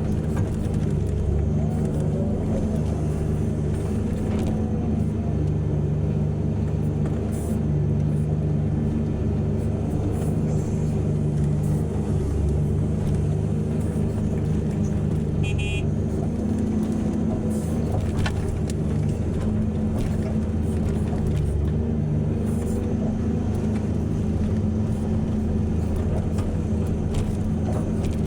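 Diesel engines of heavy mining machinery running steadily, a deep even drone. One brief high squeak or beep comes about halfway through.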